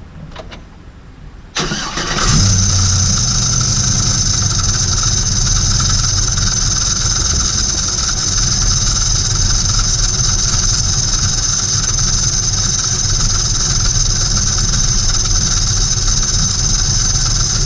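Cammed LS2 6.0 V8 cranked and started, then idling with a steady high-pitched grinding whine over the engine, and shut off near the end. The grinding comes from the belt-driven accessories: with the belt off the noise is gone, so it is not internal to the engine.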